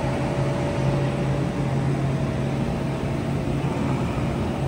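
Steady low mechanical hum, like an idling engine, over outdoor background noise.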